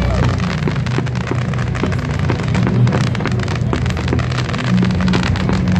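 Fireworks crackling densely as volleys of white comets with crackling tails rise, a rapid, rain-like patter of many small pops. A steady low drone runs underneath.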